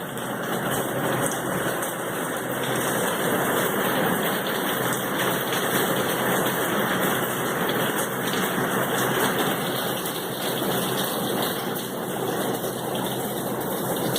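Heavy hurricane rain pouring steadily, a dense, even hiss.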